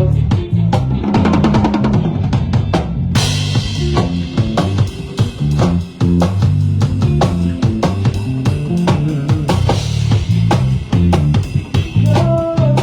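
A live band playing: a drum kit with kick and snare driving a busy beat over a bass guitar line, with a cymbal crash about three seconds in and a melodic instrument coming in near the end.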